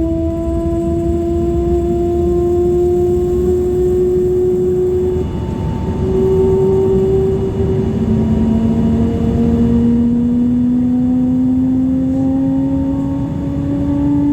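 Dornier 328 Jet's Pratt & Whitney PW306 turbofan engines running with a moaning drone over a low rumble. The main tone slowly rises in pitch, and about halfway through a second, lower tone comes in and climbs as well.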